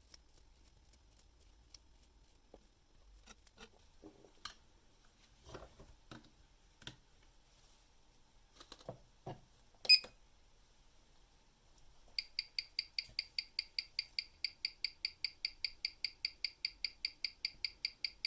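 Small handling clicks, then one sharp click about ten seconds in. From about twelve seconds in, the ticking of a vintage 17-jewel Croton manual-wind watch movement, amplified by a timegrapher microphone, runs as an even train of about five ticks a second. The movement's beat error still reads too high.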